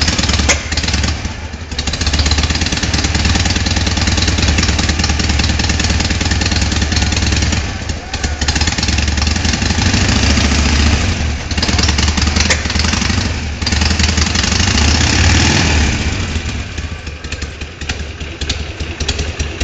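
Harley-Davidson Sportster V-twin engine running through its stock exhausts. It rises and falls in loudness several times and runs lower near the end.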